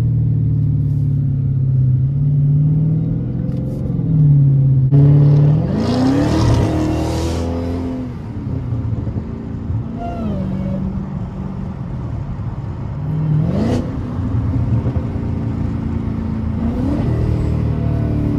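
2015 Dodge Hellcat's supercharged 6.2-litre V8 under way: a hard acceleration about five seconds in, rising in pitch with a loud burst of exhaust noise. Two shorter climbs in revs follow later, each dropping back as it shifts.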